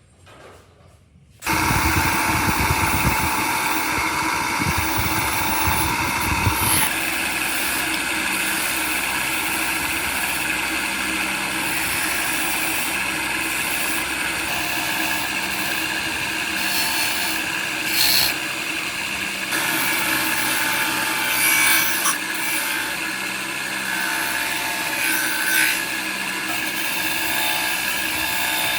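An electric power tool starts up about a second and a half in and runs steadily under light load.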